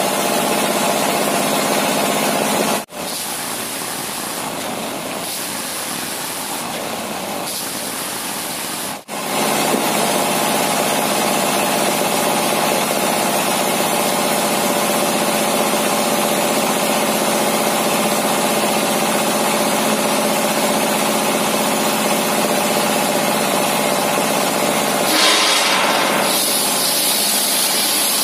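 Single-cylinder diesel engine driving a homemade table circular saw, running steadily with the blade spinning, with a quieter stretch of about six seconds a few seconds in. Near the end the blade bites into a large timber beam and a hiss of cutting joins the engine.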